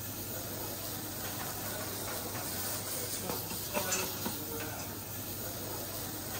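Food sizzling in a frying pan over a gas burner while flames flare up from the pan: a steady hiss.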